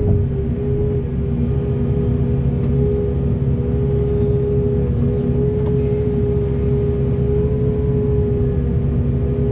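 Heavy diesel earth-moving machinery running steadily: a continuous low engine drone with a steady high hum over it and a few faint ticks.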